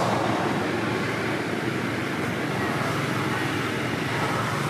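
Steady, even outdoor background noise, a constant hiss with no distinct events.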